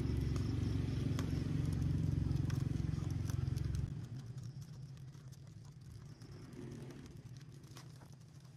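A low, steady engine-like hum that cuts off abruptly about four seconds in, followed by faint scattered ticks.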